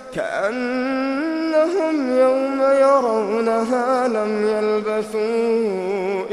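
A man's solo Quran recitation in melodic tajwid style. He draws out one long, ornamented phrase with a steady voice whose pitch slides gently up and down.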